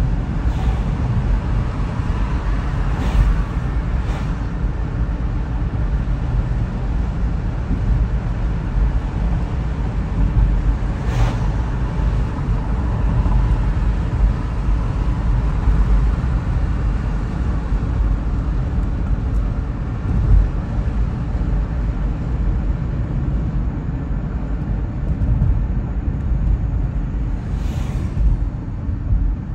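A car driving on a city road: a steady low rumble of tyres and engine, with a few brief thumps over bumps in the road surface.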